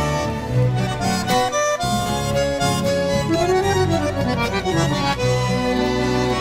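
Background music: an accordion-led instrumental passage between the verses of a folk song, with no singing.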